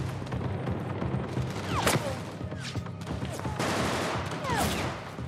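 Bursts of automatic gunfire with sharp high sounds falling in pitch, over a low steady drone.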